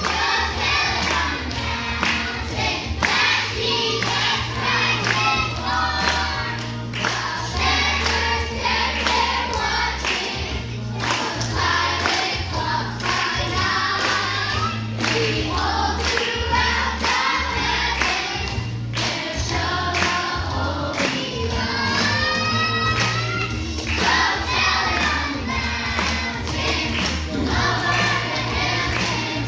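A choir singing a song with instrumental accompaniment and a pulsing bass line; children's voices are among the singers.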